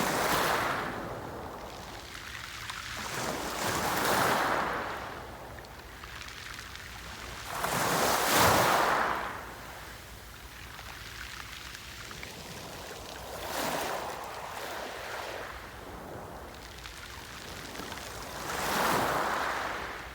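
Sea waves breaking and washing up the shore in surges every four to five seconds. The loudest wave breaks about eight seconds in.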